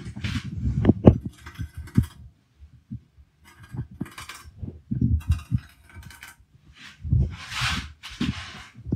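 A large cleaver-style knife cutting and scraping along a raw tuna fillet on a wooden cutting board. The wet fish thumps and knocks as it is handled on the board, with short rasping strokes of the blade and a longer scrape near the end.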